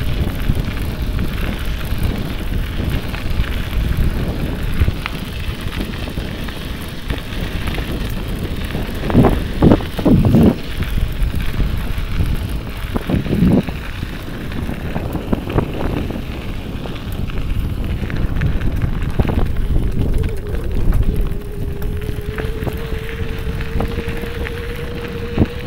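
Wind rumbling on the microphone during movement outdoors, with a few louder knocks about ten seconds in and again a few seconds later. Near the end a faint steady tone comes in and slowly rises a little in pitch.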